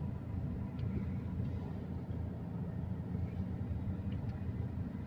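Low, steady rumble of a vehicle engine idling, heard from inside the car's cabin.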